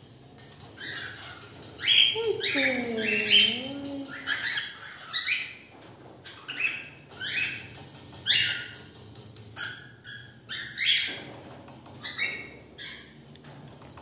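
Cockatiels chirping: a string of about a dozen short, loud calls, each sliding down in pitch, spaced irregularly.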